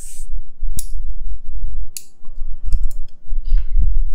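Sharp metallic clicks from a needle holder and ligature instrument clamping and twisting stainless-steel ligature wire onto a brace bracket: one click about a second in, another at two seconds and a quick cluster near three seconds, over a low rumble.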